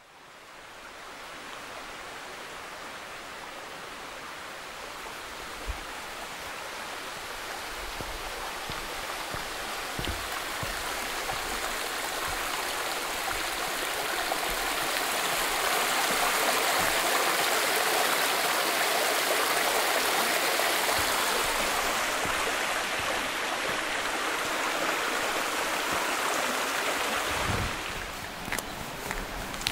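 Small mountain stream rushing and splashing over rocks, swelling steadily louder toward the middle and dropping off near the end. In the last couple of seconds, footsteps crunch on a gravel track.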